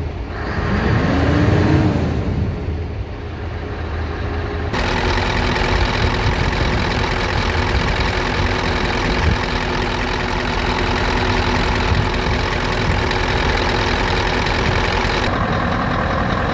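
Scania R 560's V8 diesel engine revved and let back down in the first few seconds, heard from the cab. It then idles steadily, heard close up in the engine bay beside the turbocharger.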